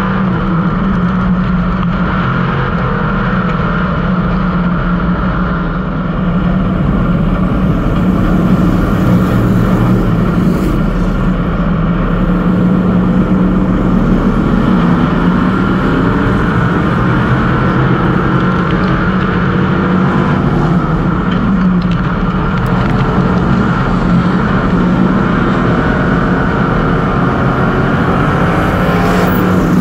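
Street stock race car's V8 engine running hard under racing load, heard from inside the cockpit, with a brief dip about six seconds in before it pulls strongly again.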